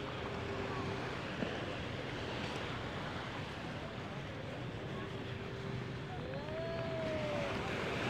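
Surf washing onto a sandy beach, with wind on the microphone. A steady droning tone is heard in the first second and again from about five seconds in, and a short whine rises and falls near the end.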